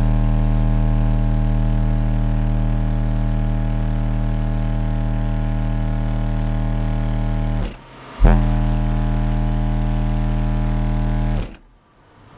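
Car audio subwoofers (two 12-inch) playing a 39 Hz test tone at about 143 dB, heard as a loud, buzzing drone. It cuts out about 7.5 seconds in, starts again a moment later and stops near the end. The amplifier load is pulling the electrical system into heavy voltage drop.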